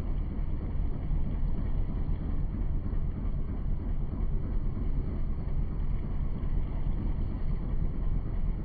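Steady low rumble aboard a moving boat, with wind buffeting the microphone.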